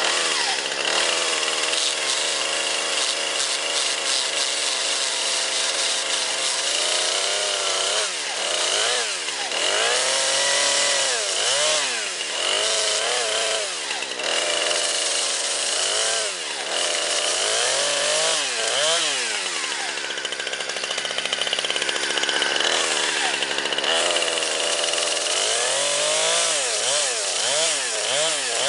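Chainsaw running at speed while cutting up a Samsung Galaxy S4 smartphone; steady at first, then from about seven seconds in revving up and down again and again.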